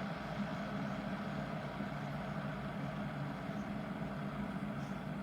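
Keebar 0.8 L stainless-steel gooseneck electric kettle heating water close to the boil: a steady rumbling hiss that does not change.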